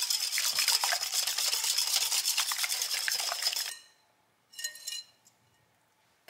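Stainless steel wire whisk beating a runny egg-and-milk batter in a glass bowl, its wires clicking rapidly against the glass, stopping a little before four seconds in. About a second later a brief clink, as the whisk is lifted out.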